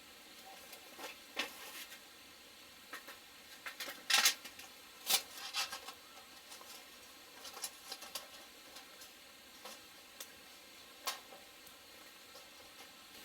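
Scattered light clicks, taps and rustles of things being handled, with a cluster of louder ones about four to five seconds in.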